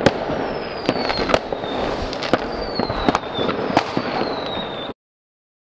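Intro sound effect of dense crackling and popping, like fireworks, with three falling whistles over it. It cuts off suddenly about five seconds in.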